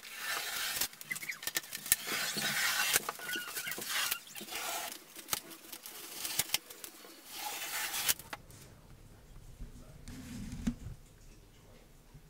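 Blue painter's tape being peeled off a tub surround wall along a fresh silicone caulk bead: a noisy tearing rasp in several long pulls, with sharp clicks, stopping about eight seconds in. After that come quieter knocks and handling sounds.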